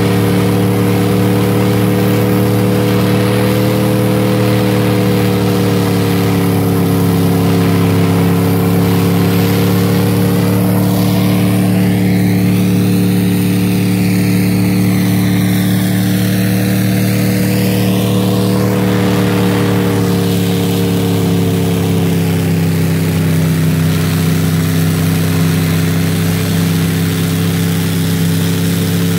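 Snowcat engine running steadily as it drives up a snowy trail, its pitch holding nearly even with slight dips.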